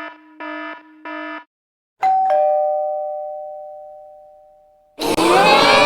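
Electronic chime sound effects: a few short, even beeps, then a two-note ding-dong chime at about two seconds that rings and slowly fades over some three seconds. Near the end comes a brief, loud, noisy burst full of warbling tones.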